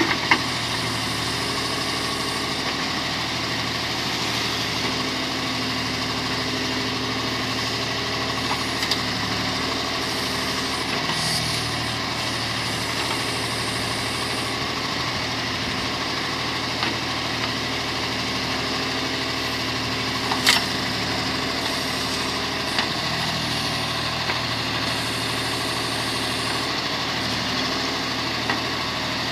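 Diesel engine of a tractor or backhoe loader idling steadily, with a few brief sharp clicks or knocks over the top.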